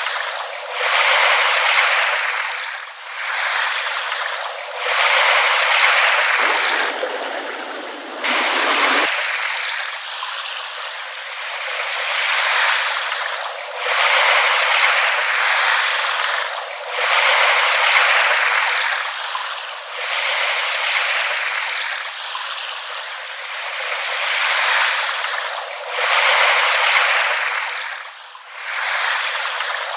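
Small ripple waves lapping at the shore, a soft wash that swells and falls every couple of seconds, with no deep surf rumble.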